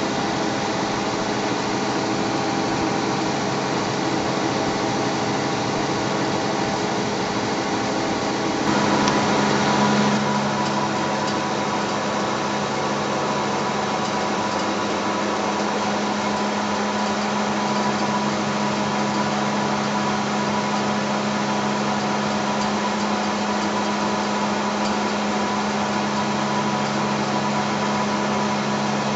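Spinning rotor of a coil-and-magnet generator test rig running at a steady speed, a continuous mechanical hum with a steady whine. About nine seconds in the sound changes and briefly swells, and from then on the low hum is stronger.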